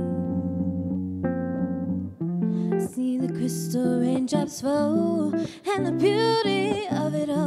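Archtop electric guitar playing held chords through a small amplifier. About two seconds in, a woman starts singing over it, her held notes wavering.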